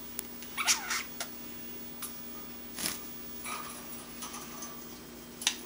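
Baby budgerigar babbling, the chattering of a young budgie learning to talk: short chirps and warbling, whistled notes in several separate bursts, with a couple of sharp clicks between them.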